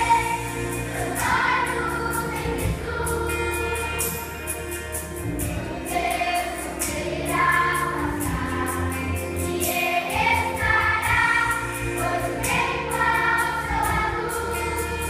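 Children's choir singing a Christian song in Portuguese over instrumental backing with a steady bass line.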